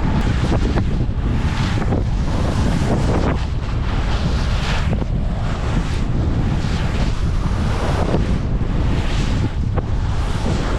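Wind buffeting the microphone: a loud, steady low rumble with rushing gusts that swell and fade about once a second.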